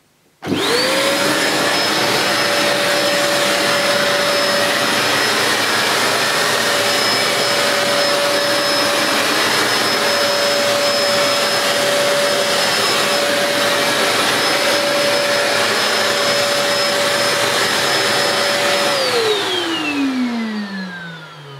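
Princess Jet Vac floating bagless cylinder vacuum cleaner switched on about half a second in, its motor spinning up quickly to a steady whine over a rush of air. It runs evenly for about eighteen seconds, then is switched off and winds down with a falling whine near the end.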